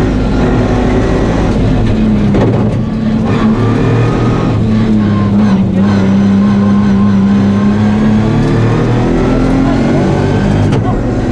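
Nissan 350Z rally car's V6 engine, heard from inside the cabin, running hard at racing revs on a stage. Its pitch shifts with throttle and gear changes, with a long steady high note in the middle and a falling, then rising, note near the end.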